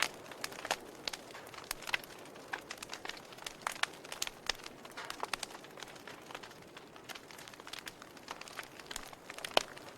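Wood fire burning in a fireplace: a steady soft hiss with irregular crackles and pops, one sharper pop near the end.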